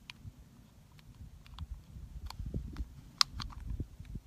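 Scattered light metallic clicks and taps of 22-250 cartridges being handled and pressed into the Thompson/Center Compass rifle's detachable box magazine. Under them runs a low, uneven rumble of wind on the microphone.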